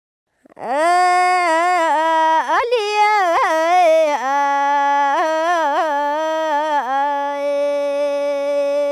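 A single unaccompanied voice singing a slow, ornamented melody, with bends and quick turns on the notes and long held notes near the end.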